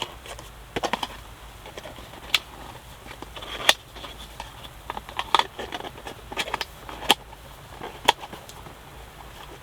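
Irregular light clicks and taps of utensils against cookware, about ten scattered strokes over a low background hum, while a takoyaki snack is being prepared.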